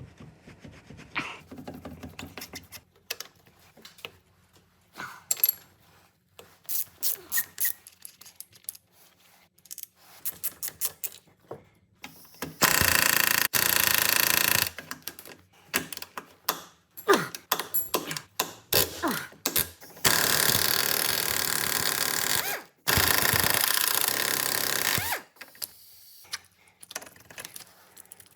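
A power tool runs in three loud bursts of a few seconds each, amid the clicks and clatter of metal tools being handled.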